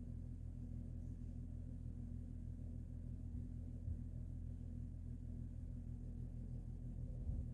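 A steady low hum with several pitched lines, unchanging throughout.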